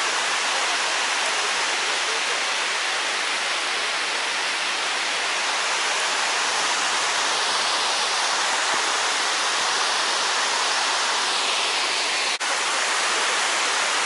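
Shiraito Falls, a wide curtain of many thin streams of water falling down a cliff into a pool, making a steady hissing rush.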